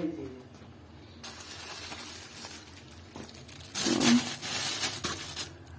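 Plastic bags of fish rustling and crinkling as they are pushed into a refrigerator compartment. The crinkling is loudest for about a second and a half around four seconds in.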